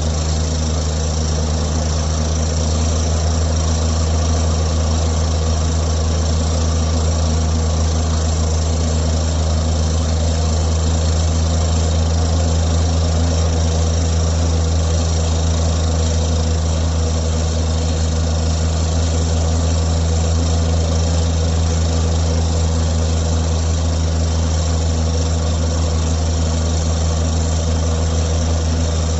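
Excavator-mounted PD300 hydraulic rock drill working from an XCMG excavator, with the machine running at a steady load. It makes a constant, heavy, low drone that does not change in level.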